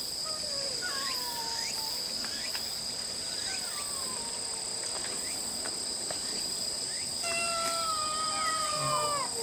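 Kittens meowing. A few short mews with falling pitch come in the first half, then a longer, louder meow of about two seconds starts around seven seconds in. Under them runs a steady, high-pitched insect chorus.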